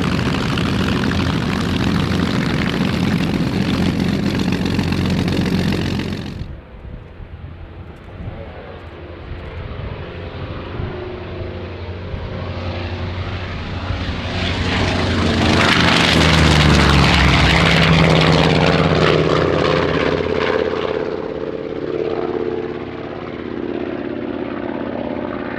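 Focke-Wulf Fw 190 A-8's radial engine running loud at high power on the runway. After a sudden cut, the engine builds to full takeoff power and is loudest about fifteen to nineteen seconds in, dropping in pitch as the fighter passes, then eases as it climbs away.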